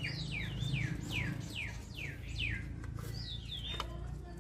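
A songbird calls in a run of quick, sharply falling chirps, about two or three a second, then gives a short phrase of rising-and-falling notes about three seconds in.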